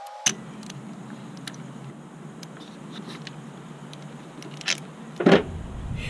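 Hand tools working on the engine: scattered metal clicks and clinks of a ratchet and spark plug socket, with a louder clunk about five seconds in, over a steady low hum.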